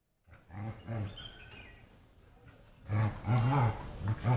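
Dogs growling in rough play: short bouts of low growls, loudest in the last second and a half, with a faint high whine a little over a second in.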